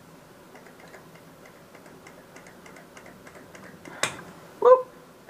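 Metal tools being handled: faint light ticking, then a sharp click about four seconds in and a louder metal clank with a short ring just after.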